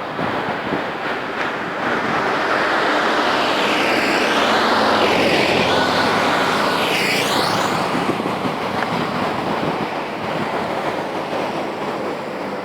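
Road traffic: a vehicle passes by, its tyre and engine noise swelling to a peak about five seconds in and then fading, over a steady rush of road noise.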